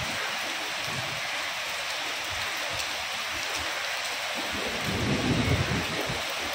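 Steady hiss of rain falling on a street. About four and a half seconds in, a low rumble swells up underneath it and then eases.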